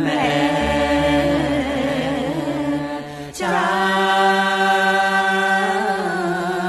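Music: a wavering sung melody over held instrumental notes, with a new phrase starting about three seconds in.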